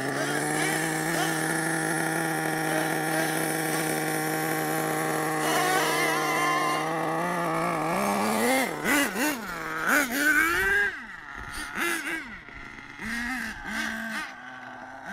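Small nitro engine of an RC monster truck running at a steady pitch for about eight seconds, then revving up and down, then fainter short bursts of throttle.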